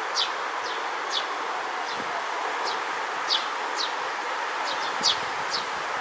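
Eurasian tree sparrow, a fledgling, giving short high chirps that fall in pitch, about two a second at an uneven pace, over a steady background hiss.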